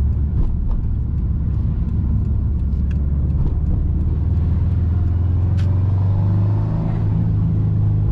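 Subaru WRX's turbocharged EJ255 flat-four heard from inside the cabin, a steady low rumble while driving that rises a little in pitch about five or six seconds in. A few short sharp pops come through, like the snap, pop and crackle the car now gives on shifts.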